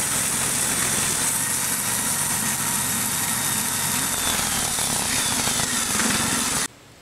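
Portable bandsaw mill sawing a white ash log: the mill's small gasoline engine running under load with the band blade hissing through the wood. The sound is steady and cuts off suddenly near the end.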